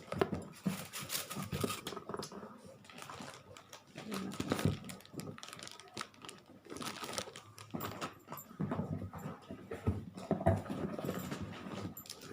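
Unpacking noises: cardboard and plastic packaging rustled and handled, with irregular light clicks and knocks as parts are lifted out of the box.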